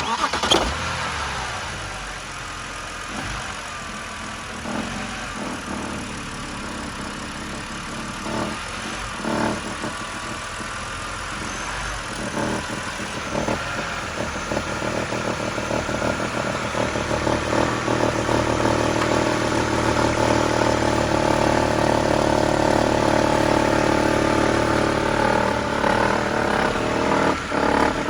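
BMW N52B30 straight-six petrol engine running with a clattering, rattling noise. It is briefly blipped a few times and then held at higher revs through the second half.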